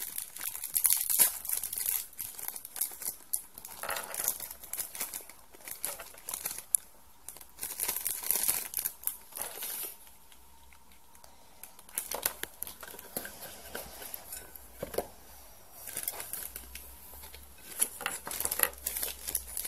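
Thin plastic wrappers of a chocolate-making kit crinkling and tearing as they are pulled open by hand, in irregular bursts of crackling with a short quieter pause about ten seconds in.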